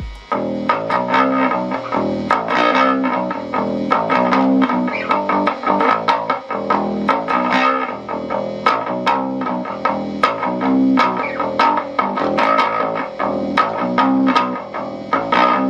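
Electric bass guitar played through an Epiphone Studio 15B bass combo amp with its equalizer turned fully up: a busy, unbroken run of plucked notes with sharp attacks, loud.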